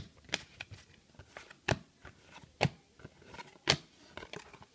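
2010-11 Panini Classics basketball cards being flipped through one at a time by hand, each card moved to the back of the stack with a sharp flick, about one a second, with fainter card rustles and clicks between.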